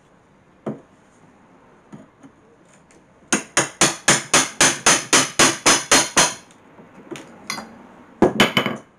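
Hammer knocking old wood out of a pine cabinet's frame: one knock, then a quick run of about fourteen sharp blows, four or five a second, followed by a few more strikes near the end.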